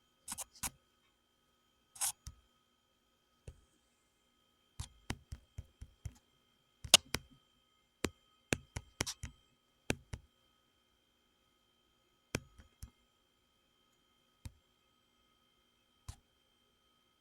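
Irregular sharp clicks of a computer mouse and keyboard, single or in quick little runs, with pauses of a second or more between.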